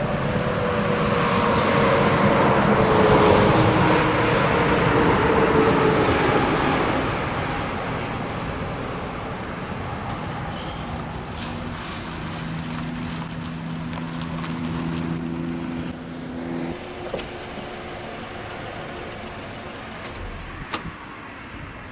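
A car passes close by: its engine and tyre noise swell to a peak a few seconds in, with a falling pitch, then fade. Quieter vehicle noise follows, with a steady low engine hum that cuts off suddenly.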